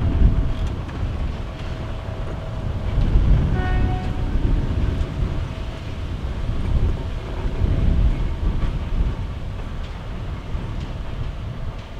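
PKP Cargo ST44 (M62-type) diesel locomotive's two-stroke V12 engine rumbling as it pulls a freight train slowly past, with a faint steady whine above the rumble. A short high tone sounds briefly about four seconds in.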